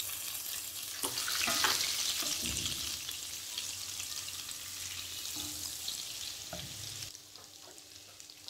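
A pat of butter sizzling as it melts in hot oil, stirred with a wooden spatula. The sizzle swells about a second in and drops away sharply near the end.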